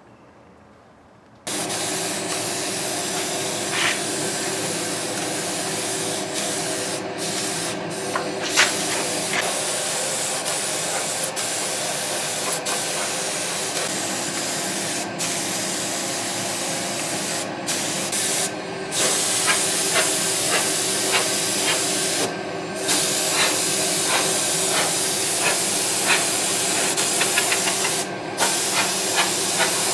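Compressed-air gravity-feed spray gun spraying paint: a loud, steady hiss that starts about a second and a half in and breaks off briefly several times as the trigger is let go, over a low steady hum.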